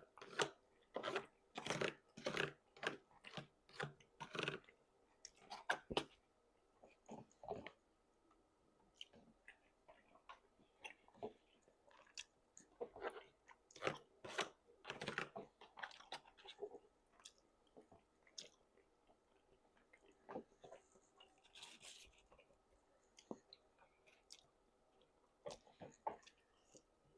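A person chewing food close to the microphone, with steady chews about two a second that die down around six seconds in, pick up again about twelve seconds in, then give way to scattered small mouth clicks.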